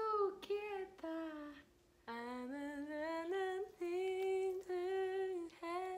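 A woman singing unaccompanied in Japanese: a slow melody with long held notes and a brief break about two seconds in.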